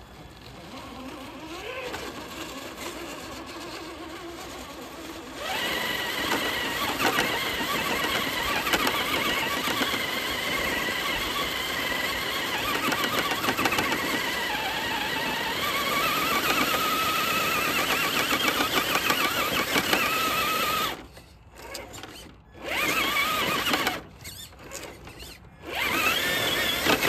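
Traxxas TRX-4 RC crawler's electric motor and geared drivetrain whining under throttle as it climbs over rocks. The whine turns loud a few seconds in, rises in pitch around the middle, then cuts off and comes back in two short bursts near the end as the throttle is let off and blipped again.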